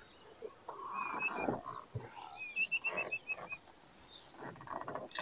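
Faint wild bird calls: scattered high chirps, with a quick run of about seven short, evenly spaced notes near the middle.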